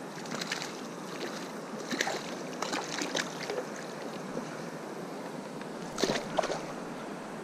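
Steady rush of river water. A few short, sharp sounds cut through it, clustered around two to three seconds in and again around six seconds in.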